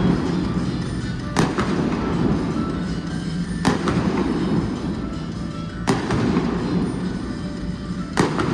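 Indoor stadium fireworks going off four times, about two seconds apart, each bang echoing under the dome, over music played on the stadium sound system.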